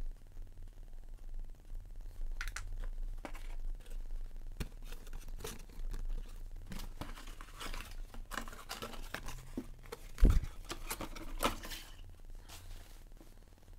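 Handling noise of a cardboard box and plastic parts bags: rustling and crinkling with scattered clicks, and one loud thump about ten seconds in.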